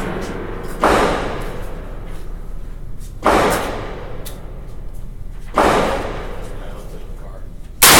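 Smith & Wesson M&P15 Sport II AR-15 rifle fired four times, the shots about two and a half seconds apart, each followed by a long echoing decay.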